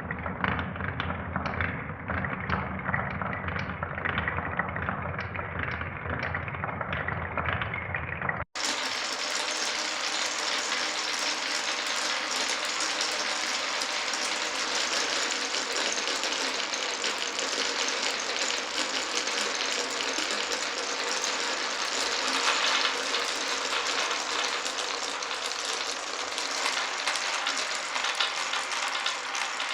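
Marbles rolling along a marble run: first a low rumble with a regular clatter about every half second, then, after a sudden cut about eight seconds in, a steady bright rattling hiss of marbles running on.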